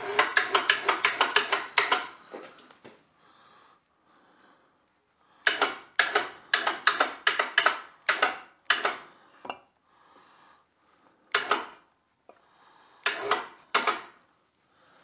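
Metal clicking and clinking as a Mercruiser sterndrive's upper housing is worked down onto the lower unit's studs and shaft splines: a quick run of about five clicks a second at the start, a second run in the middle, and a few single knocks near the end.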